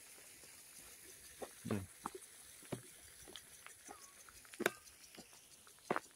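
Scattered light taps and clicks at an irregular pace, with a dull low knock about two seconds in and a sharper click a little past the middle.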